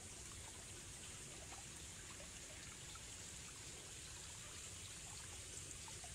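Faint, steady sound of falling or running water over a steady high hiss, with small scattered drip-like ticks.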